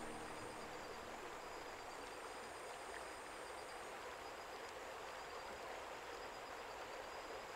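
Faint, steady outdoor ambience: an even hiss with a couple of thin, steady high tones running through it.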